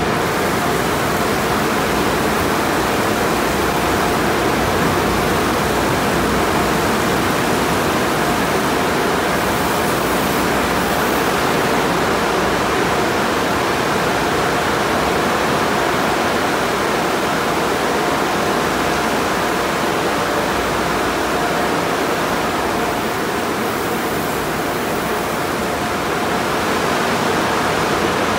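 Tunnel car wash heard from inside the car: water spray pouring over the body while spinning cloth wrap and top brushes scrub it, a steady loud rush of water and cloth.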